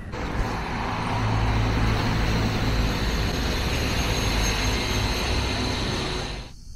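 A motor vehicle running close by in street traffic, engine hum under tyre and road noise. It grows louder about a second in and dies away near the end.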